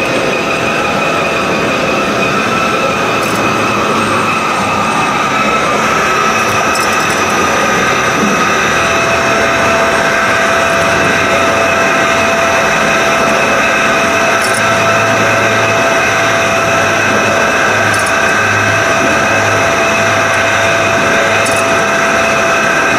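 Serrated-blade CNC grinding machine running its automatic cycle, its grinding wheel working tooth by tooth along a serrated knife blade: a loud, steady machine noise with several steady whining tones. It stops abruptly at the very end.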